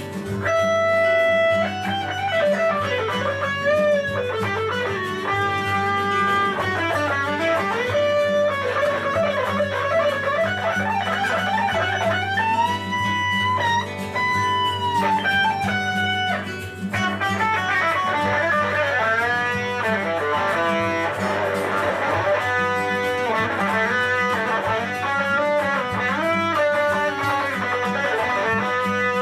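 Guitar improvising a solo in the Lydian mode: melodic lines that mix long held notes with vibrato and bends and quick runs of notes, over a steady low backing.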